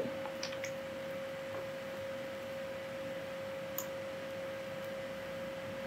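A steady single-pitched hum, one held tone, over faint hiss in the recording's background noise, with one soft click a little under four seconds in.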